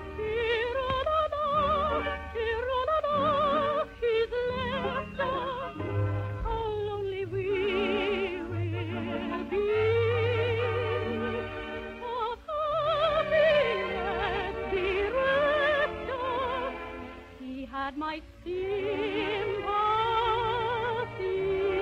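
An operetta number: a trained voice sings with strong vibrato over sustained orchestral accompaniment, in the narrow, dull sound of a vintage 1949 radio broadcast recording.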